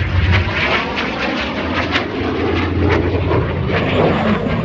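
Jet engine of an Aermacchi MB-339 jet trainer flying overhead: a steady, loud roar with a crackling edge as the solo aircraft flies its tail-slide manoeuvre.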